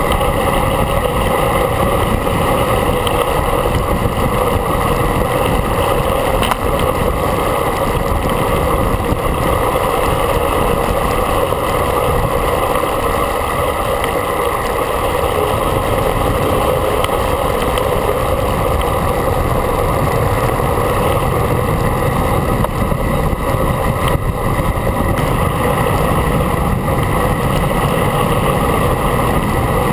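Steady rush of wind buffeting a handlebar-mounted action camera on a road bike ridden fast, mixed with tyre and road noise.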